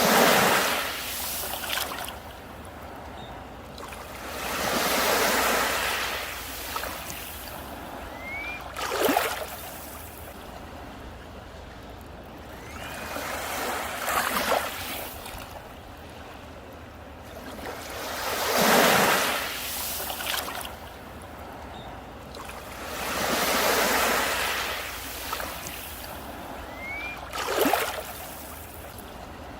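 Sea waves breaking on a beach and washing back, a new wave about every four to five seconds; some break with a sharp crash, others swell in and out more softly.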